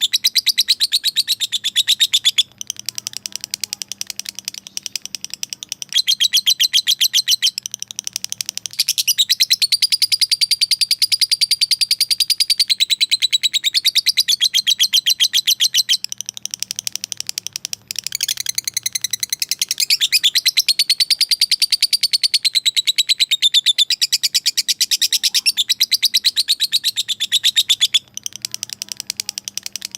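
Lovebird giving its long, rapid chattering trill (ngekek), a call to a rival. It is a fast string of shrill notes kept up for several seconds at a time, dropping to quieter, broken chatter twice between the loud runs.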